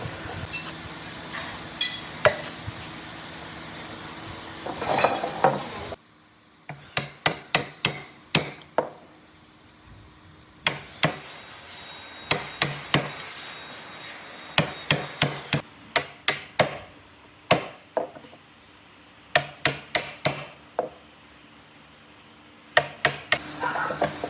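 Hammering on a wood workpiece: runs of sharp blows, about two to three a second, with short pauses between the runs.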